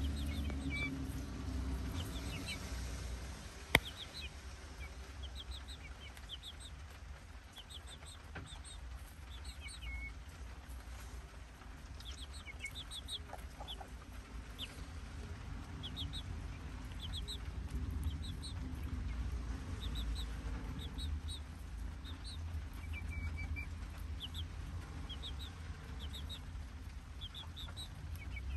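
Young chicks peeping in short high chirps, often in quick runs of two to four, while they peck at an ear of corn, with a steady low rumble underneath. A single sharp click about four seconds in is the loudest sound.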